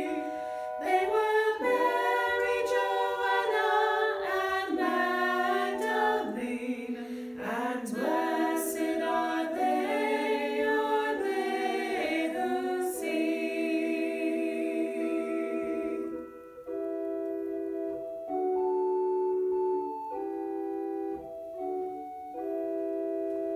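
Three women singing a song together in harmony over sustained organ-like keyboard chords. The voices stop about 16 s in, and the held organ chords carry on alone, changing a few times to close the song.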